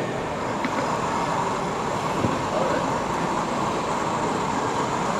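Steady hubbub of a crowded exhibition hall: many people talking at once, with no single voice standing out.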